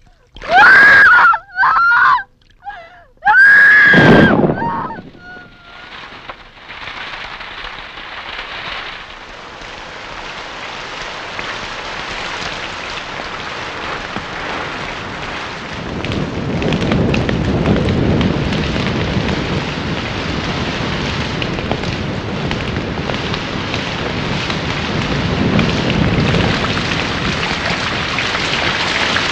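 Three loud honking bird calls in the first few seconds, then rain building into a steady downpour, with low rumbles swelling twice.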